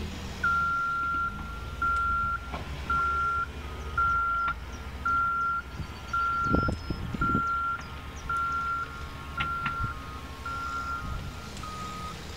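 Reversing alarm of a construction vehicle beeping, a steady high tone repeated about once a second, over the low rumble of a diesel engine. A fainter, slightly lower beep joins in between the beats in the second half, and a few low thumps come about halfway through.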